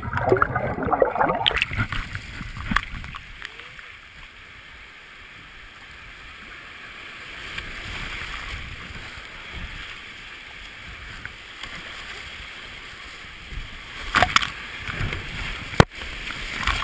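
Kayak running a creek rapid: churning water as the boat dips under at the start, then the steady rush of whitewater around the hull, with paddle splashes and a single sharp knock near the end.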